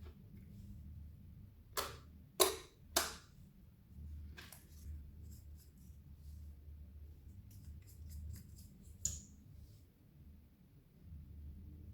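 Clear slime being handled, giving three sharp sticky pops about two to three seconds in, then a weaker one and later a run of small faint clicks, over a low steady hum.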